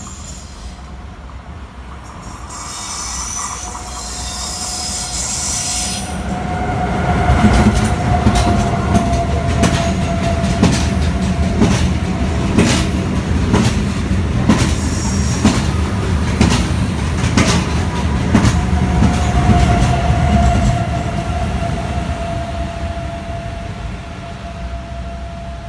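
Renfe Class 130 (Talgo) passenger train passing through a station at speed. It builds up with a hiss, then runs loud for several seconds with the wheels clicking rapidly over the track and a steady high whine, and fades near the end.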